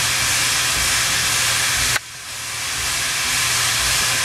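Loud, steady hiss of escaping steam from a steam locomotive. It cuts off abruptly about two seconds in, then builds up again.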